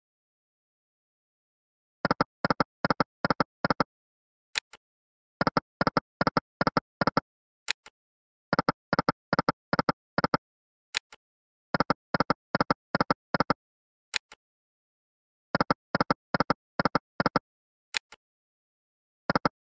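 Video slot game sound effects: sets of five short pitched blips in quick succession, one for each of the five reels stopping, repeating spin after spin about every three seconds. A single sharp high tick falls between the sets.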